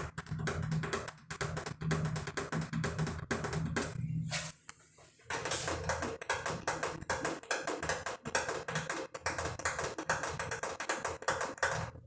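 ASMR tapping on objects: fast, dense taps with the fingers. They stop briefly a little before halfway, then start again with a different ring under them.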